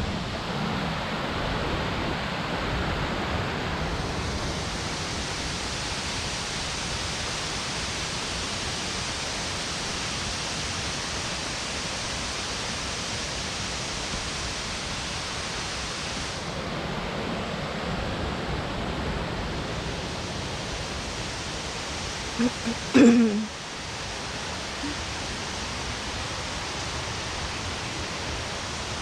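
Steady rushing roar of a waterfall, Burgess Falls, as continuous even noise. Late on, a brief louder sound cuts through it.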